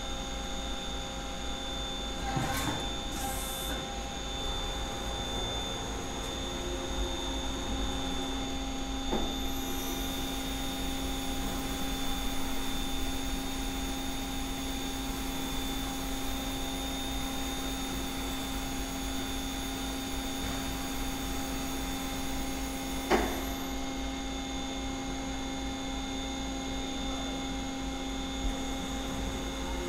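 Doosan Puma 300C CNC lathe running a program: a steady machine hum as the turret travels and the 12-inch hydraulic chuck spins on the spindle. Short clunks come about two and nine seconds in, and a sharp clunk about 23 seconds in is the loudest sound.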